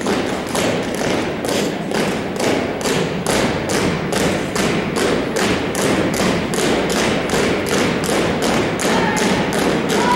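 A drill team's shoes stamping in unison on a hardwood gym floor, a fast even beat of about three thumps a second that rings in the hall.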